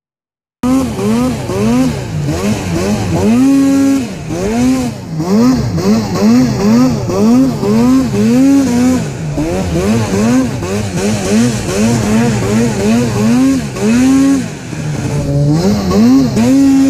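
Arctic Cat snowmobile engine with an MBRP aftermarket exhaust, revved up and down over and over, about twice a second, as the rider works the throttle through deep powder, with a steady hiss of wind and snow. It cuts in abruptly about half a second in.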